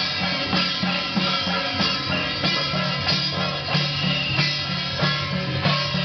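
Drum and hand cymbals of a procession troupe playing a steady beat of about three strokes a second, with a higher melody line held over it.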